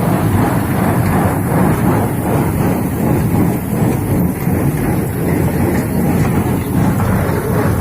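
Tractor running and driving a tractor-drawn paddy-straw baler: a steady, loud mechanical clatter with engine drone.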